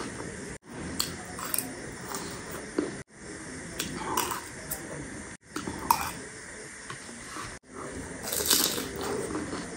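Close-miked eating: crunching and chewing of crisp panipuri shells and chatpate, with small clicks of a spoon on the dish. The sound breaks off abruptly every two to three seconds and picks up again, as short clips joined together.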